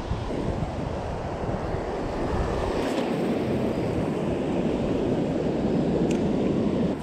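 Small waves breaking and washing through shallow water over a stony bottom, with wind buffeting the microphone.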